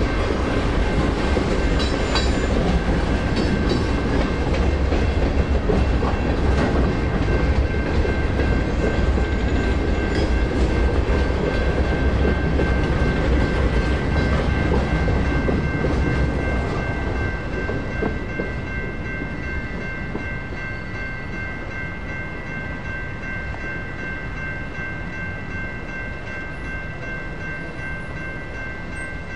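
Freight cars rolling across a grade crossing, rumbling and clacking over the rails, the sound dropping away after about seventeen seconds as the end of the train passes. Crossing bells ring steadily throughout.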